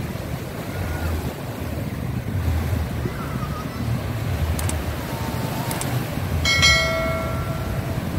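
Small waves washing in over a shallow, murky beach, with wind rumbling on the microphone. About six and a half seconds in, a single high pitched tone sounds for about a second and a half.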